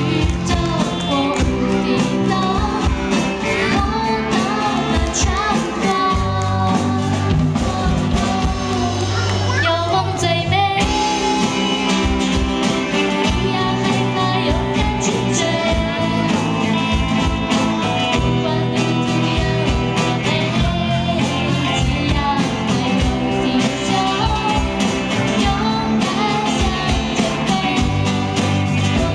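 Live amplified band: a woman singing into a microphone over acoustic guitar and electric bass, in a light rock style.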